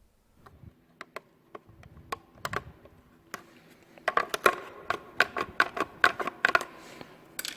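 Light plastic clicks and taps from a trim remover and screwdriver working the fixing clip of a Mercedes W212 side-mirror turn-signal unit to free it from the mirror cover. The clicks are sparse at first and come thick and fast from about four seconds in.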